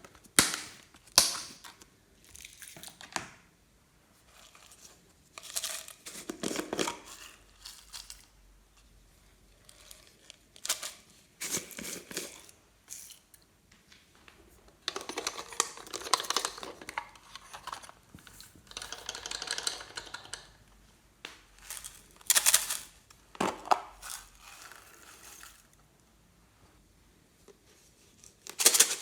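Hands handling slime-making materials: a series of separate crinkling, tearing and clicking handling noises, some short and sharp, others lasting a second or two, with quiet gaps between them.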